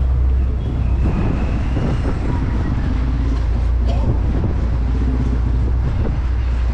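Steady low rumble of a car driving slowly along a street, engine and road noise heard from inside the car.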